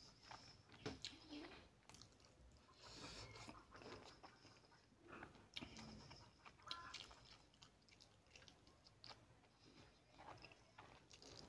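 Quiet, close-miked mouth sounds of a person chewing a mouthful of rice and fish curry: scattered short wet smacks and clicks, with the curry licked off the fingers near the end.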